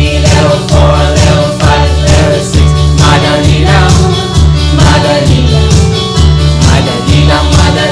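Praise-and-worship band music with a steady beat and heavy bass, with voices singing over it.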